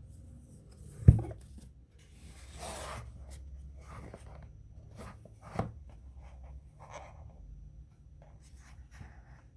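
Phone packaging and its contents being handled: a sharp knock about a second in, a rustle, a second knock about halfway through, and small clicks and rubbing sounds between.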